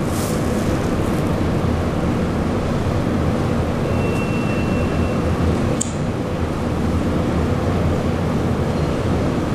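Steady hum and hiss, with a thin high tone lasting about a second around four seconds in and a single brief click near six seconds.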